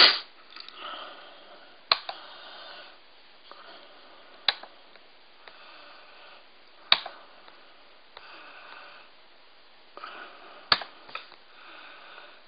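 Breathing close to the microphone, heard as soft hissing breaths about a second long, with a sharp click every two to three seconds.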